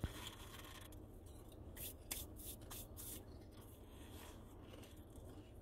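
Potato chips being chewed: a string of faint, irregular crunches, clustered from about two to three seconds in.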